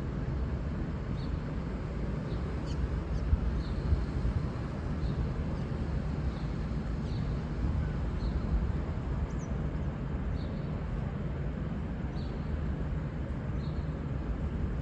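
Steady low rumble, with a short, high chirp repeating about once a second, like a small bird calling.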